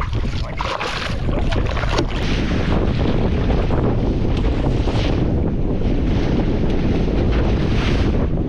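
Wind buffeting the microphone over sea water splashing against the side of a small fishing boat, with a few louder bursts of splashing as a hooked fish churns the surface beside the hull.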